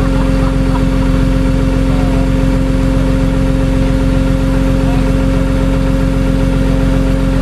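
Tow truck's engine running steadily at idle, a constant low rumble with a steady droning hum.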